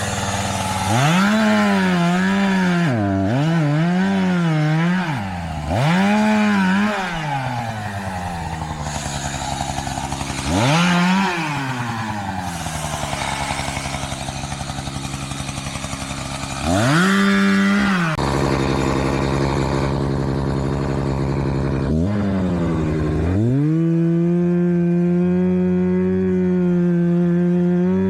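Chainsaw engine revved up and down in a series of short throttle bursts between lower running, then held at high speed for several seconds near the end.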